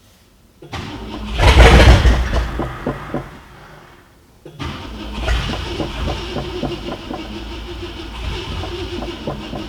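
1966 Ford Thunderbird V8, with no gasoline in the tank, being started on a spray of starting fluid: it catches and runs hard about a second in, fades and stops, then is cranked again from about four and a half seconds with an even, pulsing rhythm.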